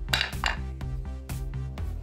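Background music with a steady beat, and a short metallic clatter near the start as a steel hammer is set down on the stone floor.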